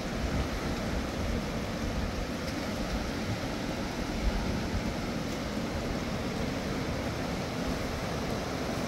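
Fast-flowing, swollen river rushing over rocks: a steady, even noise with a deep rumble underneath. A single brief knock about four seconds in.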